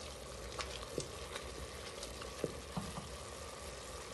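Walnut and orange juice paste sizzling in a stainless steel pot as a wooden spoon stirs it, with a few short clicks of the spoon and pan scattered through the steady hiss.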